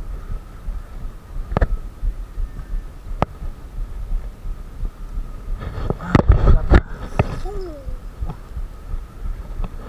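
Spinning fishing reel being cranked to wind in line, under low rumbling handling noise, with two sharp clicks and a louder jumble of knocks about six seconds in.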